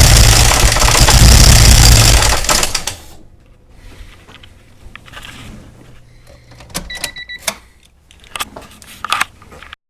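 A vehicle engine running very loud, then stopping about two and a half seconds in. After it stops there are faint clicks and knocks, and a short beep.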